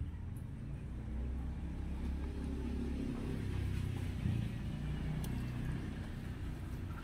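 Low, steady background rumble.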